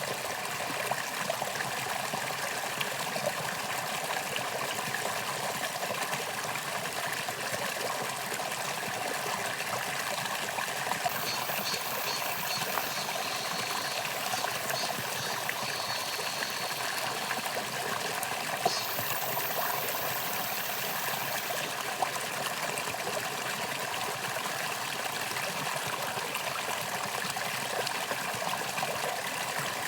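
A mountain stream running over rocks, a steady babbling rush of water.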